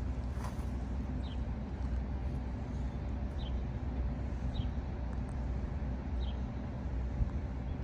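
Steady low rumble of an idling engine, with a small bird giving short chirps every second or two.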